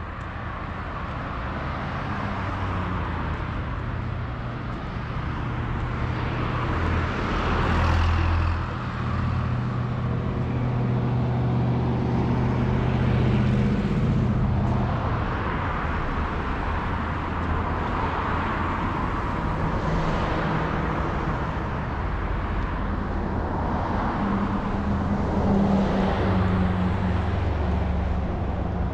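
Road traffic: cars passing one after another, each swelling and fading, over a low engine hum.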